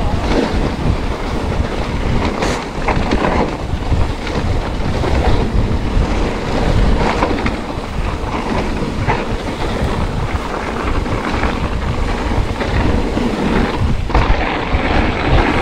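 Trek Rail 7 electric mountain bike riding down a rough trail: a continuous rumble of tyres over the ground, with irregular rattles and knocks from the bike.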